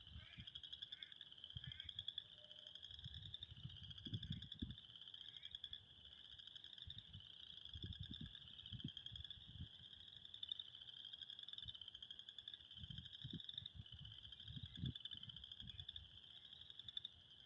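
A chorus of frogs calling continuously: many overlapping short rising trills repeating high up, with a fainter lower-pitched layer of calls beneath. Faint low rumbling thumps come and go underneath the chorus.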